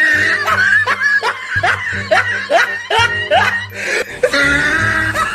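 Music with a steady bass line under a string of short rising laugh-like cries, about two a second.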